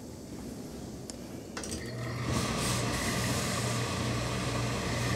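Industrial steam iron pressing a wool coat panel. After a click about a second and a half in, a steady electric hum and a hiss of steam start and run on.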